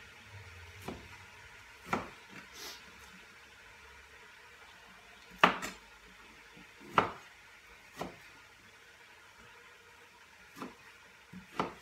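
Chef's knife cutting raw beef on a cutting board, the blade knocking sharply against the board at irregular intervals, about seven times, with the loudest two knocks midway.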